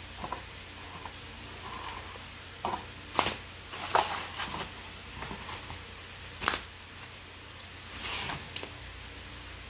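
Cardboard shipping box and plastic packaging being handled: scattered rustles, crinkles and sharp knocks, the sharpest about three, four and six and a half seconds in, over a steady low hiss.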